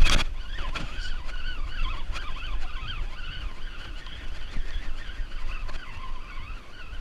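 Penn Spinfisher spinning reel being cranked: a wavering whine that rises and falls with the turning of the handle. Wind rumbles on the camera microphone, and there is a sudden burst of noise right at the start.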